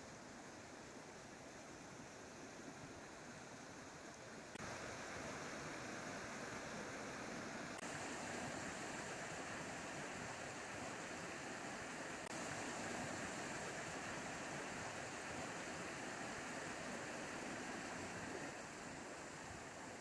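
A faint, steady rushing noise with no distinct events. It steps abruptly louder a few times, about five and eight seconds in and again past the middle, and drops a little near the end.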